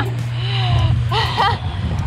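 A woman's voice calling out twice with sliding pitch, over a steady low hum.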